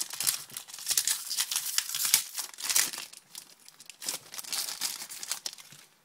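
A shiny hockey card pack wrapper being crinkled and torn open in the hands, with dense crackling rustles that thin out near the end.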